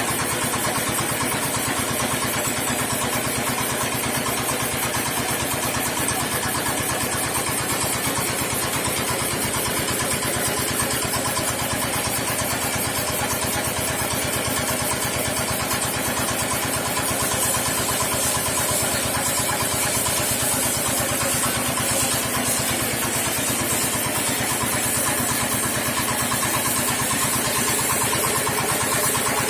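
Small engine running steadily at an even speed, with a fast, regular firing pulse.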